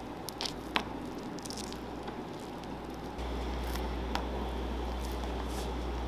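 Soft squishing of cream filling pressed out of a piping bag's metal tip onto macaron shells, with a few small sharp clicks. A low steady hum underneath gets louder about three seconds in.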